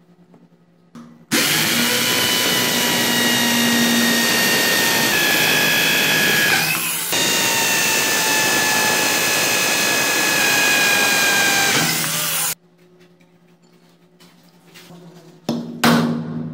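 Power drill boring into a pine board, running steadily for about eleven seconds with a short break partway through, its whine dropping slightly in pitch as the bit bites. A short knock near the end.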